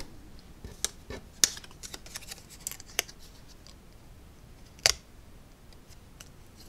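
Scattered light clicks and paper rustle from hands handling a small die-cut paper figure and a coin while sticking them together with 3D foam adhesive dots, with one sharper click about five seconds in.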